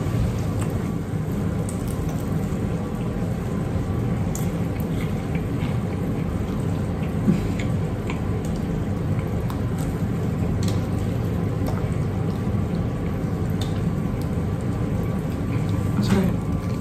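Electric deep fat fryer with its hot oil bubbling steadily as battered food fries, with a few faint clicks.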